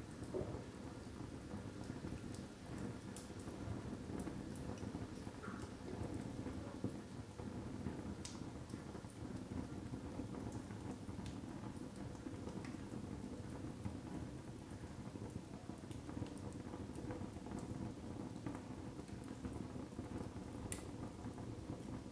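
Split logs burning in an open brick fireplace: a steady low rush of flame with scattered crackles and a few sharp pops from the wood.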